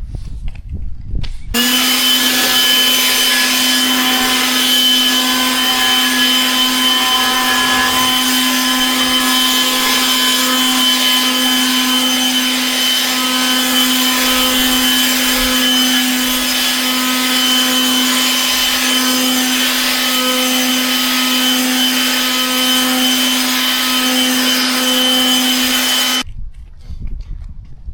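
A motorised machine running steadily: a constant hum with a broad hiss over it, starting abruptly about a second and a half in and cutting off abruptly near the end.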